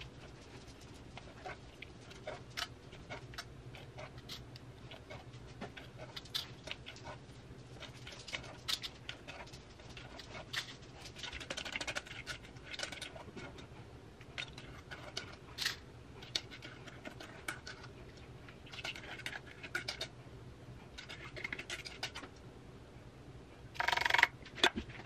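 Utensils scraping and tapping against a stainless steel mixing bowl as cake batter is spooned into paper cupcake liners in a muffin tin: scattered light clicks and scrapes, with a louder clatter near the end.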